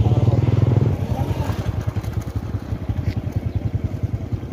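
A small engine running with a rapid, even putter, a little louder in the first second.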